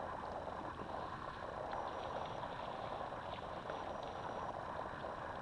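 Quiet, steady outdoor hiss of wind and lake water, with a few faint ticks.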